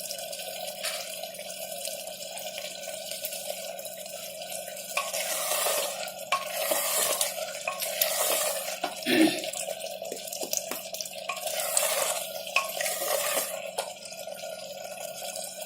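Spinach and meat curry frying on high heat in a pot, a spoon stirring and scraping it, reducing the cooking water. Steady sizzle with louder swells of stirring twice and scattered clicks of the spoon on the pot.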